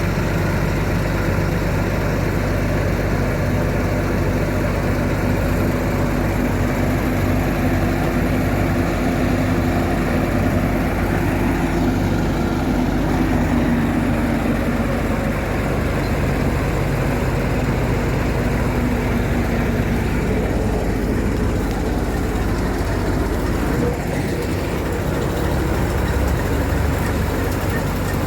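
Combine harvester's diesel engine running steadily, with a steady low hum and a fainter whine that comes and goes midway.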